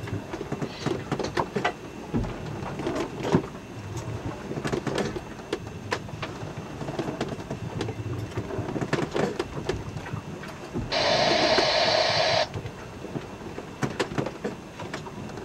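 Background noise inside a boat under way, with irregular knocks and clicks throughout and one loud burst of hiss-like noise lasting about a second and a half near the end.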